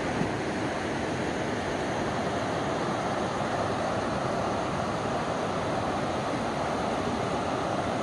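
Shallow rocky mountain stream rushing steadily over rapids and a low weir.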